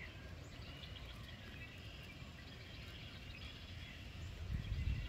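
Quiet swamp ambience: birds chirp faintly and sparsely over a low rumble. Near the end a few low thumps and handling noise grow louder.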